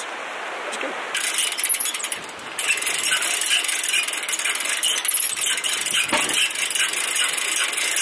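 Metal rattling and clinking as a drift boat is hauled onto its boat trailer, over the rush of the river. The clinking starts about a second in and grows busier a couple of seconds later.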